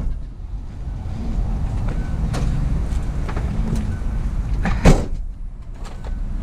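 A vehicle running with a steady low rumble, with scattered light clicks and one sharp knock about five seconds in. Faint short beeps come every second or two.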